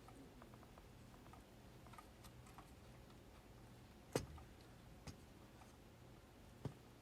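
Faint taps and clicks of hands working on the microwave's internal parts and wiring, with one sharp click about four seconds in and two smaller ones after it.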